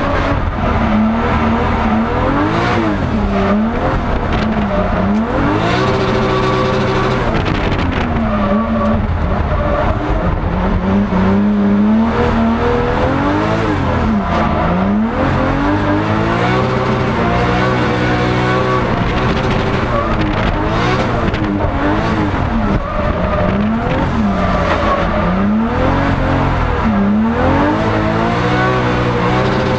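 Drift car's engine heard from inside the cabin, its revs rising and falling again and again through a drift run, with tyres squealing.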